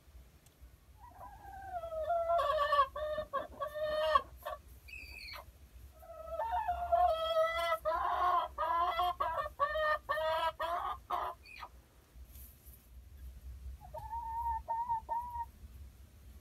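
Hen clucking and squawking in three runs of loud, rapid pulsed calls, the last one shorter and softer. It is the loud complaint of a hen kept from a nest box that another hen is hogging.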